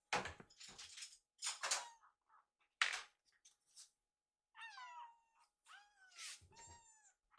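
Young kittens meowing: several short, high meows in the second half, some overlapping, after a few short sharp noises.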